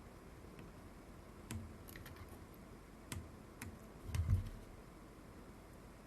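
A few small, scattered clicks and taps of hand tools and handling on a film camera body during bench work, with a soft bump about four seconds in.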